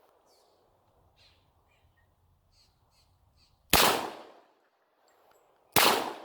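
Two shots from a compensated 1911 .45 ACP pistol, about two seconds apart, each a sharp crack with a short fading echo.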